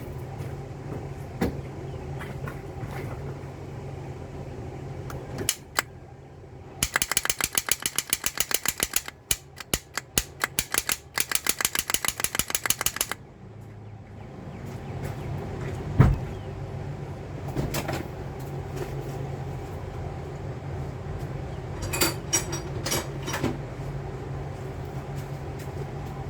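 Starter solenoid of a 2002 Toyota Solara clicking rapidly, over and over for about six seconds, as the ignition key is turned again and again, without the starter motor cranking the engine; the owner suspects the solenoid is bad. A steady low hum runs underneath, with a single loud knock later and a few more clicks near the end.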